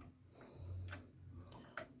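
A few faint, light clicks of steel pliers working at a door hinge, with a low hum between them.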